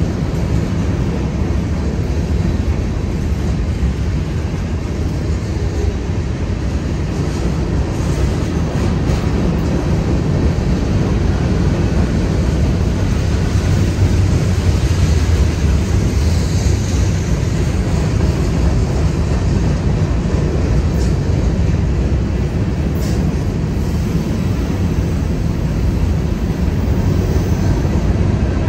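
CSX freight train rolling past with a steady low rumble.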